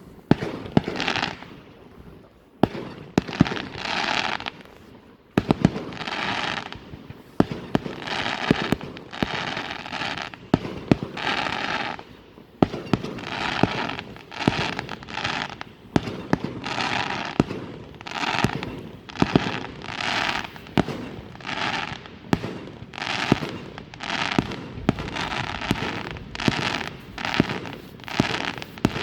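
Fireworks going off in quick succession: sharp bangs, each followed by a short hissing crackle, roughly one a second.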